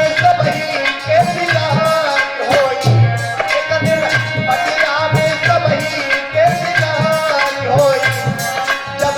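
Instrumental passage of a Hindi devotional folk song: hand drums keep a steady beat under a wavering melodic instrument line.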